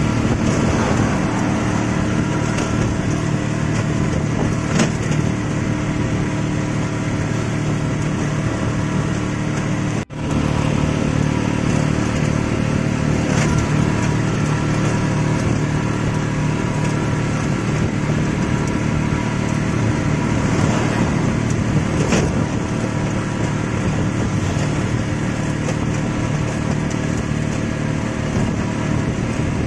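Motorcycle engine running steadily at cruising speed, with heavy wind and road rush. The sound breaks off for a moment about ten seconds in, then resumes the same.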